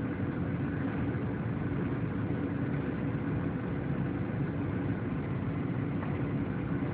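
Steady cabin noise of a Boeing 737-800 descending on approach: the drone of its CFM56-7B turbofans mixed with rushing airflow, with a low hum holding a steady pitch.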